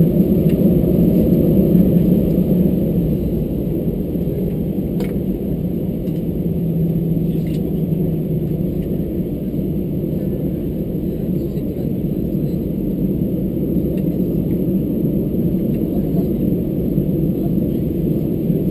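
Steady low rumble in the cabin of an Airbus A320-214 taxiing with its CFM56-5B engines at idle, with a faint click about five seconds in.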